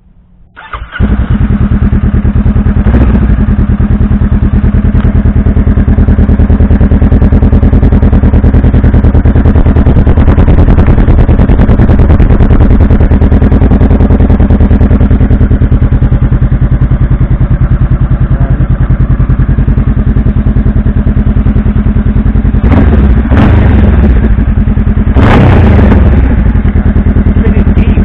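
2017 Honda Rebel 500's 471 cc parallel-twin engine starting about half a second in. It then idles steadily through a K-Speed Diablo aftermarket dual exhaust, with two short louder bursts near the end.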